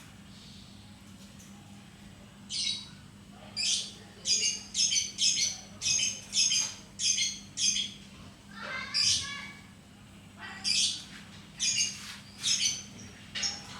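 Lovebird giving a series of short, sharp, high-pitched squawking calls, about one to two a second, starting a couple of seconds in. A faint steady hum runs underneath.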